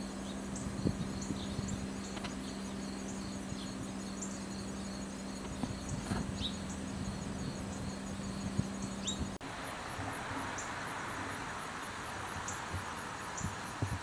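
Insects chirping in steady, regular pulses, with a low steady hum under them that stops abruptly about nine seconds in; the chirping carries on after that.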